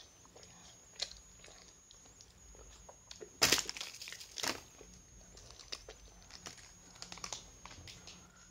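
Plastic candy wrapper crinkling and tearing in short scattered rustles as a sour gum stick packet is worked open, with two louder crackles about three and a half and four and a half seconds in.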